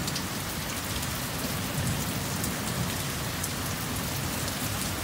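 Heavy rain falling steadily and streaming off a roof edge, drops spattering, with a low rumble of continuing thunder underneath.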